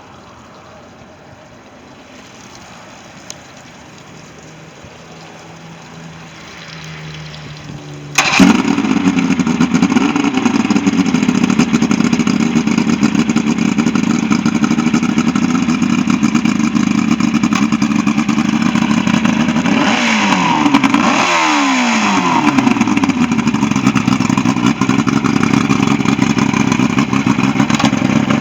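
Boat engine starting abruptly about eight seconds in and then running steadily, its speed dropping back briefly a little past the twenty-second mark. This is the engine running again after a no-start fault was repaired.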